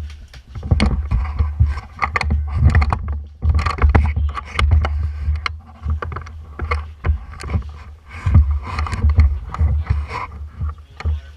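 Low rumbling and buffeting on the action camera's microphone as the wearer moves, mixed with irregular clicks and knocks.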